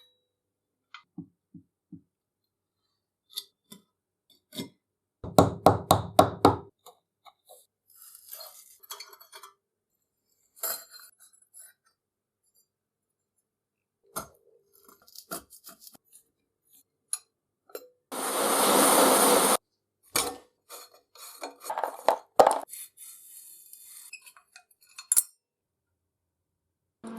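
Metal parts of an antique ox-tongue box iron clinking and knocking as it is handled and taken apart: scattered clinks, a quick run of about eight light taps, and a short hiss of under two seconds.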